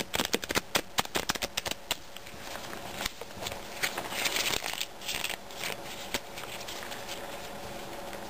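A deck of playing cards being riffle-shuffled: a rapid run of card flicks for about the first two seconds, then a few seconds of softer rustling as the cards are handled and gathered.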